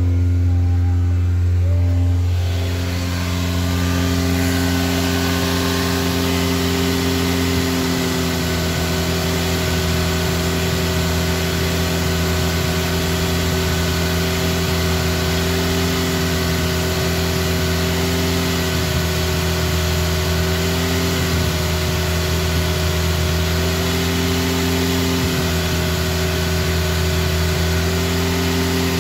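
Hyundai Elantra's 1.6-litre turbocharged four-cylinder GDI engine running steadily at held raised revs, about 2,500–3,000 rpm, while Seafoam cleaner is fed into the throttle body to clean the intake valves. It is heard first from the cabin, then up close under the open hood from about two seconds in, with more hiss.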